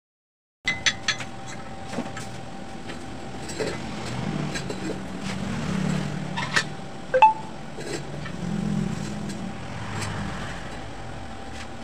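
Sharp metal clinks and clanks from a red-hot, sand-packed steel exhaust pipe being bent around a form clamped in a bench vise, one clank ringing briefly about seven seconds in. A steady workshop hum runs underneath, with a low rumble that swells twice.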